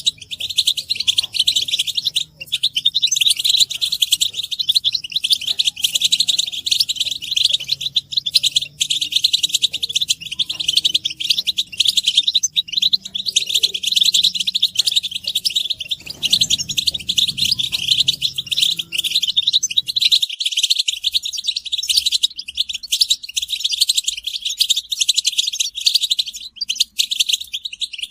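A flock of European goldfinches chattering and twittering at once: a dense, unbroken stream of fast, high chirps and trills. These are the excited group calls of the breeding season that stir a male goldfinch into song.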